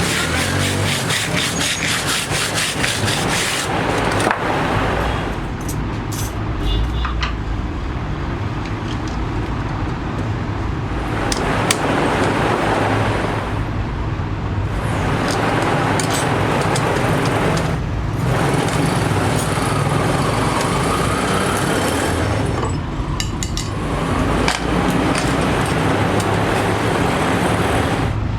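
Workshop noise over a steady low hum: quick, evenly repeated rubbing strokes for the first few seconds, then a steadier mechanical noise that drops out abruptly several times.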